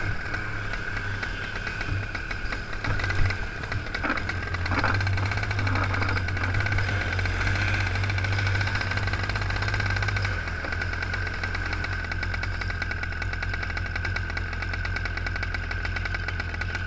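A racing kart's two-stroke engine running steadily at low revs, close to the microphone, as the kart rolls slowly on a wet track.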